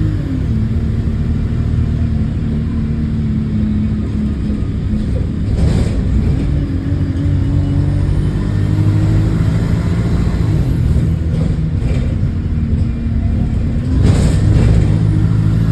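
A bus's diesel engine heard from on board, running under load with an exhaust leak. Its note drops just after the start, climbs slowly, and drops again about halfway through as the gears change, with a sharp knock or jolt near the end.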